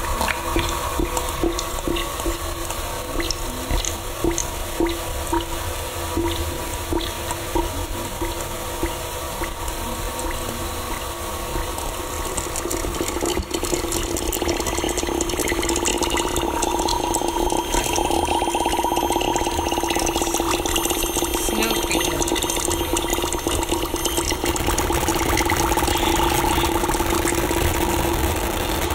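Live electroacoustic improvised soundscape: a dense noisy texture with scattered crackles over steady low drone tones. About halfway through, sustained higher tones join and it grows a little louder.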